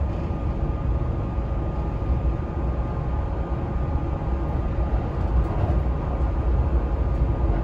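Kintetsu 30000 series Vista Car express train running at speed, heard inside the passenger car: a steady low rumble of wheels and running gear with a faint steady hum over it.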